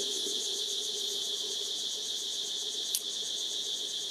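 Insects trilling in a steady, high-pitched, finely pulsing chorus, with one brief click about three seconds in.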